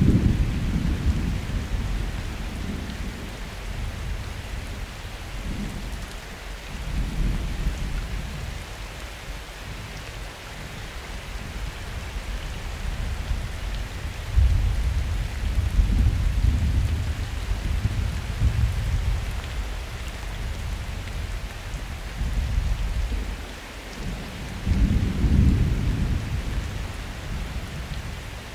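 Steady rain falling during a summer thunderstorm, with thunder rolling repeatedly in deep rumbles. A rumble fades at the start, and a long loud peal begins about halfway and lasts several seconds. Another swells up near the end.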